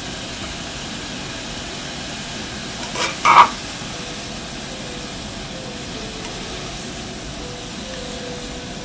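Soy-based ponzu sauce with kombu, bonito flakes and lemon slices boiling in a pot on a portable gas stove: a steady bubbling hiss, with one brief louder sound about three seconds in and chopsticks stirring near the end.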